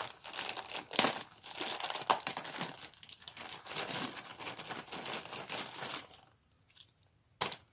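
A packaging bag of hair clips crinkling as it is opened and rummaged through, for about six seconds, then a single sharp click near the end.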